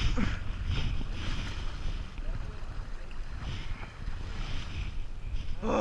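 Kayak paddle blades dipping and pulling through the water in repeated splashing strokes, with wind buffeting the microphone as a steady low rumble.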